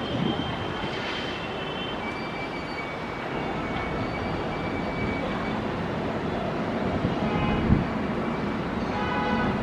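Jet airliner engines running: a steady rushing noise with thin, high whining tones, growing slightly louder toward the end.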